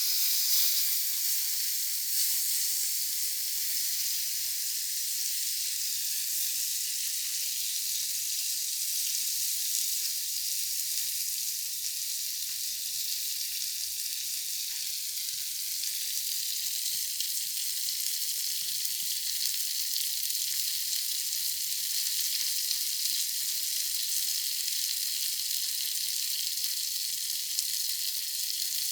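Shrimp frying in a pan: a steady sizzle.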